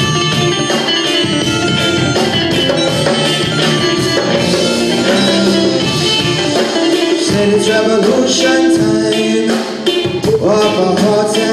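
Live band music: electric guitar and drums playing, with a singing voice coming in near the end.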